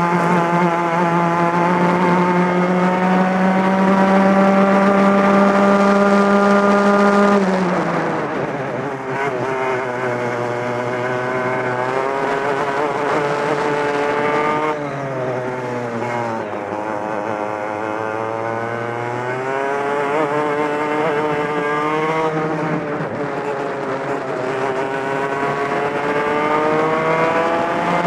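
Two-stroke racing kart engine heard from the driver's seat, held at high revs for about seven seconds, then dropping sharply as the throttle is lifted for a corner. It runs lower and uneven for several seconds, then climbs steadily as the kart accelerates out onto the next straight.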